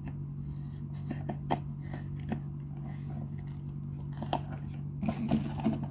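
Light clicks and taps of a foam cannon's plastic bottle being handled, with a short flurry of clicks and rustles near the end, over a steady low hum.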